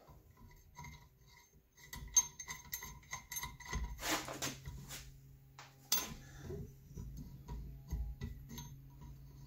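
Scattered light metal clicks and taps, with a longer scraping rub about four seconds in and a sharp click about two seconds later: valve springs, retainers and keepers being worked off a Chevy 454 big-block cylinder head with a valve spring compressor.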